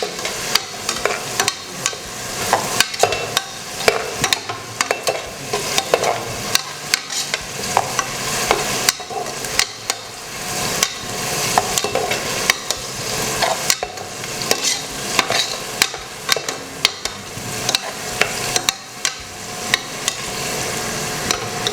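Onions frying in oil in a pressure cooker, with a steady sizzle, while a spatula is stirred through them, scraping and clicking against the pan many times at an uneven pace.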